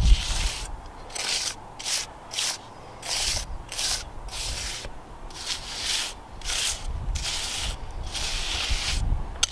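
Small pointing trowel scraping and spreading a gritty mortar bed: repeated irregular scraping strokes, about one or two a second.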